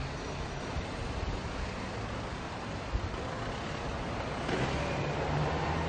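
Road traffic: a van's engine and tyres passing at low speed, then a bus engine growing louder near the end with a low steady drone.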